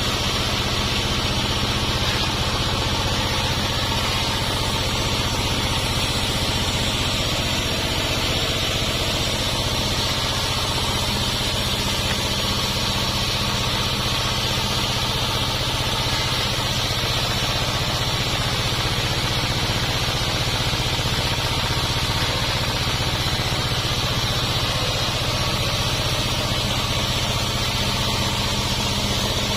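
Sawmill machinery running steadily: a constant engine-like hum with a hiss over it, unchanging throughout.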